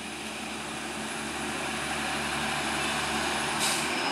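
Diesel engine of an approaching Hino dump truck, a low, steady drone that grows gradually louder as it comes up the road.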